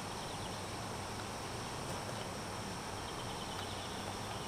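Steady outdoor background hiss with faint insects chirring.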